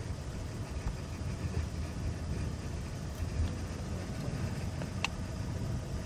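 Open safari vehicle driving on a dirt road: a steady low rumble of engine and tyres on gravel, with a brief click about five seconds in.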